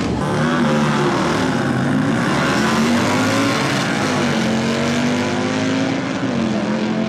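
Drag-racing motorcycle engines running loud and held at steady revs, the pitch dipping and climbing back a few times with the throttle.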